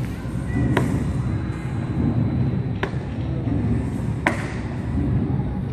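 Four sharp knocks, one to two seconds apart, each with a short ring, over a steady low background.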